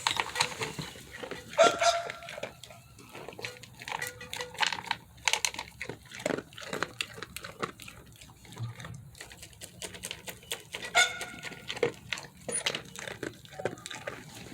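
A goat eating its feed: a quick run of clicks and knocks from the feed and its container, with two short animal calls, about two seconds in and about eleven seconds in.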